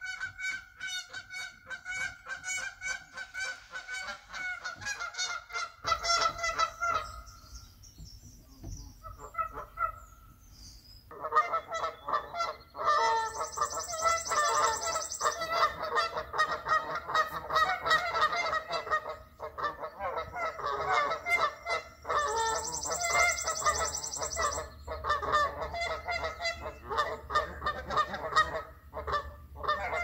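Canada geese honking in rapid, repeated calls. The calls stop for a few seconds about a quarter of the way in, then return more densely.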